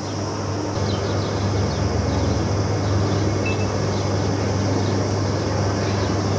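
Outdoor street ambience: a steady low hum under an even hiss, with faint short bird chirps.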